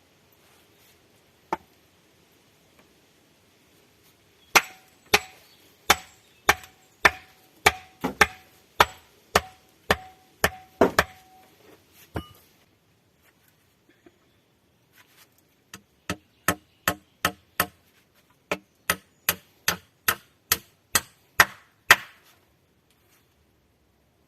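Steady, rhythmic blows of a hand tool on wood, nearly two a second, in two runs of about a dozen strikes each with a pause between them; a single blow comes first.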